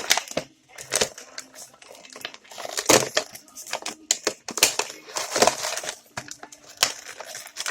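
Plastic toy packaging crinkling and crackling in the hands, with repeated sharp clicks and snaps, as surprise toys are unwrapped.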